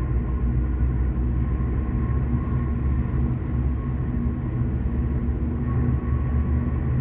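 Steady road and engine rumble heard from inside a car cruising at highway speed, with a faint steady whine above it.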